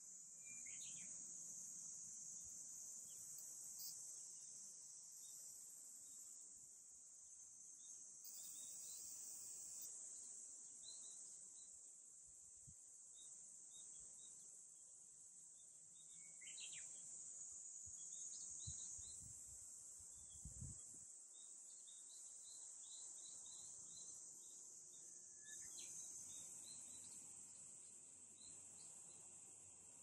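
A faint, steady high-pitched drone of summer cicadas, with short bird chirps scattered through it and a quick run of chirps about two-thirds of the way in.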